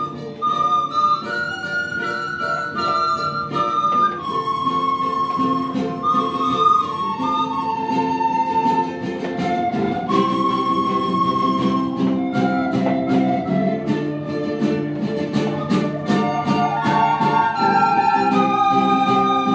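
A student ensemble playing a slow melody on flutes in long held notes over strummed guitar chords.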